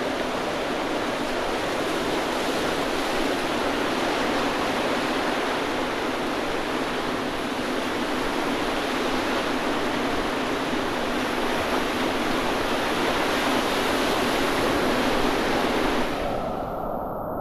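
Whitewater rapids on a river running at about 2,000–3,500 cfs: a steady, loud rush of churning water. About sixteen seconds in, the sound suddenly goes dull and muffled, its upper range cut away.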